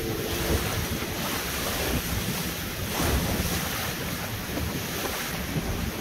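Motor launch under way on open water: wind buffeting the microphone over steady rushing water along the hull.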